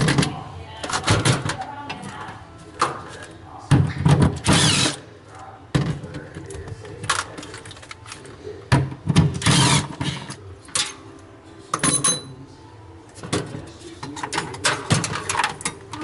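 Irregular knocks, scrapes and clatter from hands and tools working among the panels and parts of a refrigerator's freezer compartment, with a brief high squeak about twelve seconds in.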